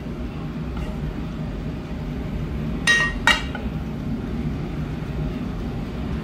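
Two sharp clinks of kitchenware about half a second apart, around the middle, over a steady low background rumble. The oil in the pan is not yet sizzling.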